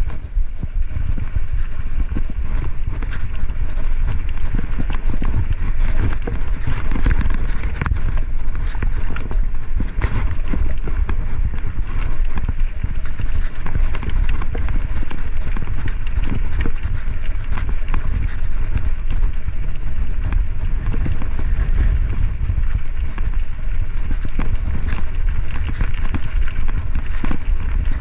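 Wind buffeting the microphone of a camera on a moving bicycle, together with tyre and road noise and frequent rattling clicks from the bike over the road surface.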